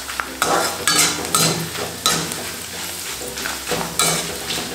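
Corn flakes sizzling in shallow hot oil in an aluminium kadhai while a perforated metal slotted spoon stirs them, scraping and clinking against the pan every half second or so.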